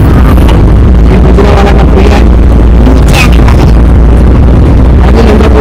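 Loud, steady low rumble inside a moving car: road and wind noise on the microphone.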